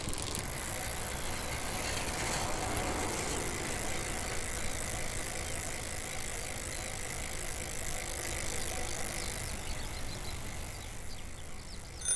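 Bicycle sound effect: a freewheel and chain ticking steadily as the bicycle coasts, with a short bell ding near the end.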